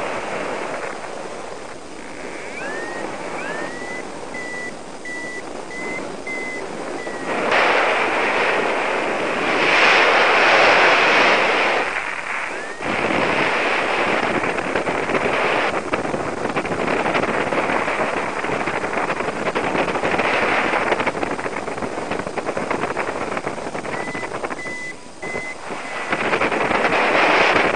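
Wind rushing over the microphone of a paraglider in flight, rising and falling in strength, strongest in gusts about a third of the way in and again at the end. A high beeping tone sounds briefly twice over the wind.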